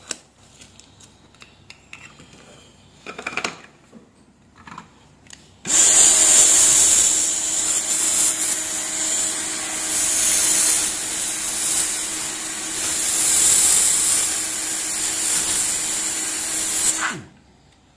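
Hot air rework station handpiece blowing a steady rush of hot air onto a small surface-mount IC to melt its solder, starting about six seconds in and cutting off about a second before the end, with a faint steady hum under the hiss. Before it, a few faint clicks.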